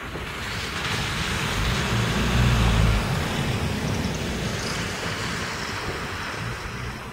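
Radio-controlled model plane with contra-rotating propellers flying by, its propeller noise swelling over the first three seconds and then slowly fading. Wind rumbles on the microphone around the loudest point.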